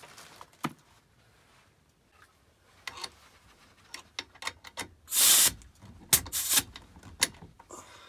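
Clicks and knocks of an air hose's quick-release coupling being worked onto a wall-mounted compressed-air manifold with regulator, with a short loud rush of noise about five seconds in and a cluster of loud clicks a second later.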